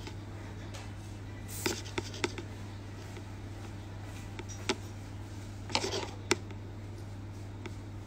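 Quiet room tone in a small room with a steady low hum, broken by a few short clicks and knocks.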